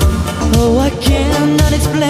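Background pop song with a sung melody over a steady drum beat and bass.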